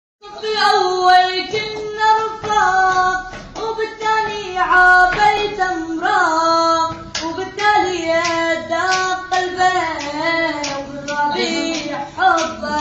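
A high-pitched voice singing an Arabic song over a sharp clapping beat.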